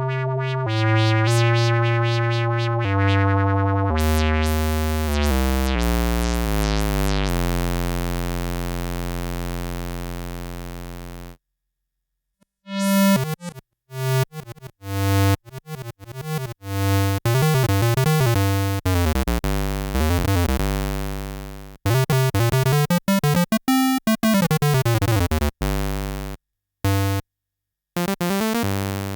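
Yamaha CS01 analog monosynth playing a descending line of buzzy single notes that hold and fade out about eleven seconds in. After a short pause come clipped, staccato notes and up-and-down pitch sweeps, broken by brief silent gaps.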